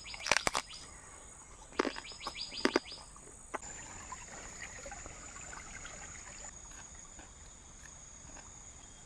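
Outdoor jungle ambience: insects keeping up a steady high-pitched drone, with a few quick clusters of sharp clicks and ticks in the first three seconds.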